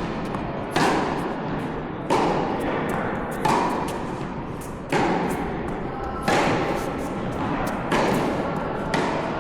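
Tennis rally: six sharp racket strikes on the ball, about one every one and a half seconds, each followed by a short echo.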